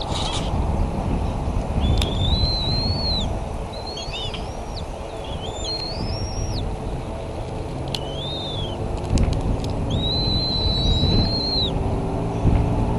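A series of high, thin whistled bird calls, each note rising and then falling, some held for over a second, over a steady low rumble. After about nine seconds a low steady hum comes in beneath them.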